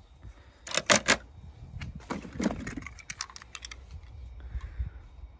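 Small die-cast toy cars being handled: scattered sharp clicks and clacks, bunched about one, two and three seconds in.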